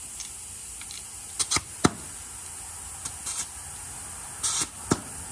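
WD-40 aerosol can sprayed in about five short squirts onto a dirt bike's chain to lubricate it, with a couple of sharp clicks between the squirts.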